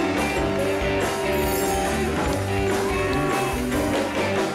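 Music with a steady bass beat under held melody notes.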